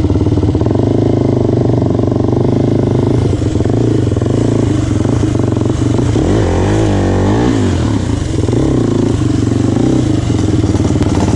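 Can-Am DS 450 quad's single-cylinder four-stroke engine running steadily as it is ridden, heard close up from the rider's seat, with the revs rising and falling about six to eight seconds in.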